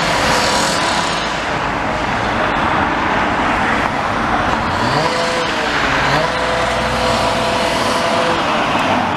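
A motorised machine rumbling over road traffic, its pitch rising sharply twice about five and six seconds in.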